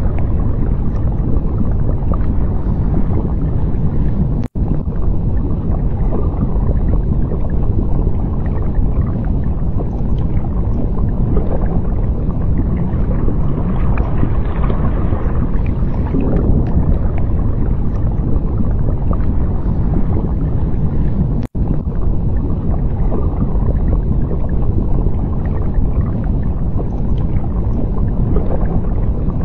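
Underwater ambience: a steady low rumble of water noise with gentle swells, cutting out for an instant twice.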